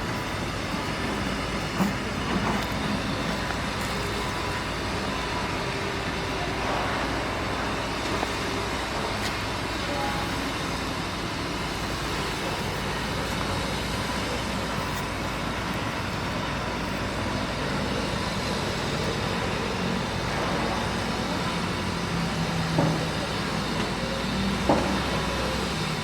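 Heavy earthmoving machinery running steadily, a constant low diesel hum under a broad mechanical noise, with a few short knocks near the end.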